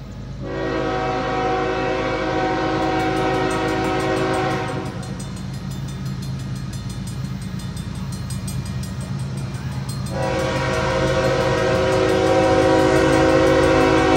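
Approaching train's locomotive horn sounding two long blasts, each about four seconds, for the grade crossing, over a steady low rumble.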